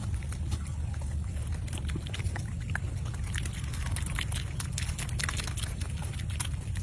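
Wild boar foraging: irregular crackles and clicks of rooting and chewing over a steady low rumble.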